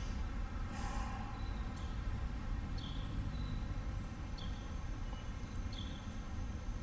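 Outdoor ambience: a bird giving short, downward-sliding chirps about every second and a half over a low, steady rumble, with a brief rustle about a second in.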